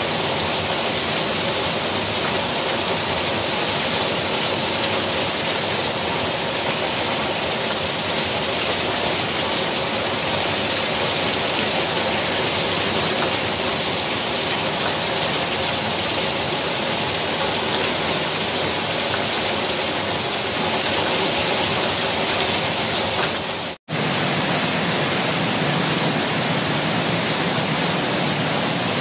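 Heavy downpour: a steady roar of rain with water pouring off a roof edge in streams. The sound cuts out for an instant near the end.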